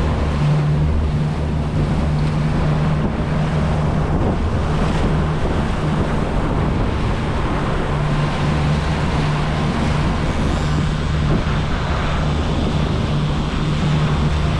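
Boat engine running steadily at trolling speed, a constant low hum, with wind and water noise over it.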